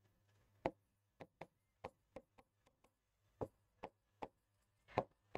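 Faint, irregular taps and clicks of a pen tip striking a writing board as words are written, about a dozen over five seconds.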